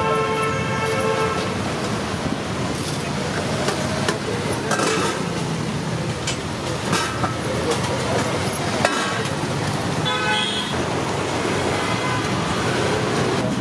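Street traffic with vehicle horns: one horn honk held about a second at the start and another shorter honk near the end, over a steady traffic hum, with a few sharp clinks in between.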